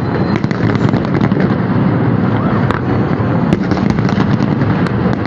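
Fireworks display: a steady loud barrage of overlapping bangs, with many sharp crackles and pops.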